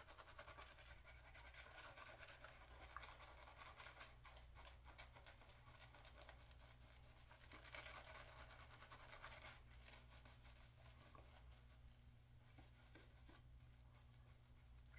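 Faint, steady scratchy swishing of a shaving brush working soap lather for the third pass, a little stronger about eight seconds in.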